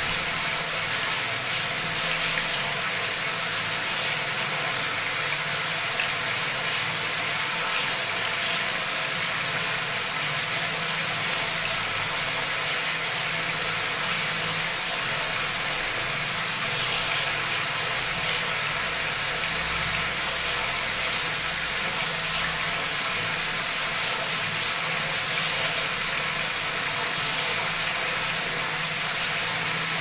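Bathroom tap running at full flow, its stream splashing into a full basin of water that is overflowing; a steady rushing hiss with no change.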